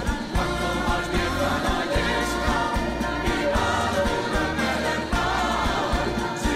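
Music with several voices singing together over a low bass line.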